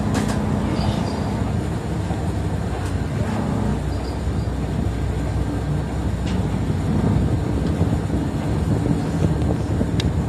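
City bus engine running steadily, heard from inside the passenger cabin, with a few light clicks.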